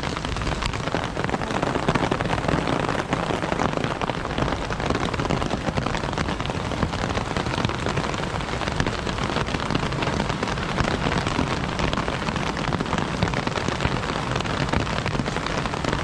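Steady rain, with many separate drops striking close to the microphone.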